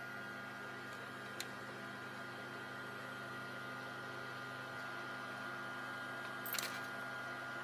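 Steady electrical mains hum from bench electronics, with a single sharp click about a second and a half in and a brief crackle near the end.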